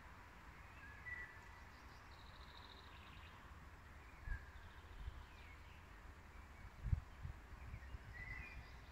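Wild birds calling faintly: a few short chirps and a brief higher trill over quiet outdoor background noise, with a few soft low thumps, the loudest about four and seven seconds in.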